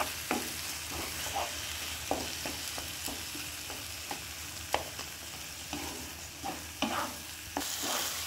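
Spatula stirring and scraping a mashed eggplant, tomato and onion bharta in a non-stick pan, over a steady frying sizzle. Irregular scrapes and taps of the spatula against the pan come every half second or so as the mash cooks through in its last two minutes.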